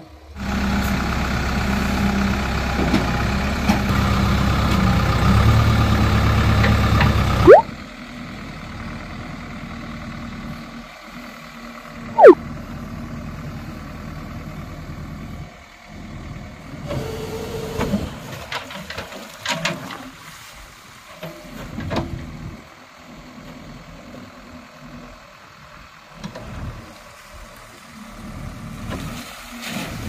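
JCB 3DX backhoe loader's diesel engine running loud and steady, cutting off abruptly about seven seconds in; after that the engine runs much quieter, with irregular bursts of noise as the backhoe bucket works in water and mud. Two short, very loud falling squeaks cut through, one about seven seconds in and one about twelve seconds in.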